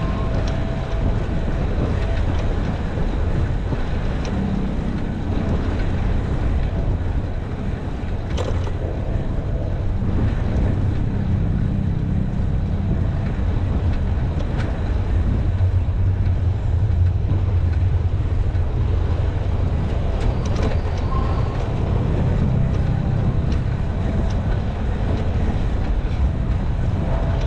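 Steady low rumble of wind buffeting the microphone on a moving bicycle, mixed with tyre noise on the paved path.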